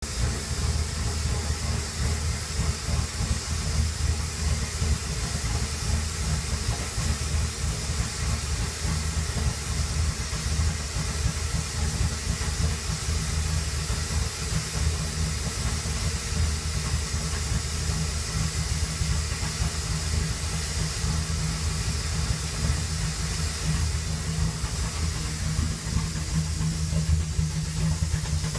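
2007 Ford Crown Victoria P71's 4.6-litre V8 idling rough after an engine rinse, heard from the exhaust as an uneven low chugging with a steady hiss over it.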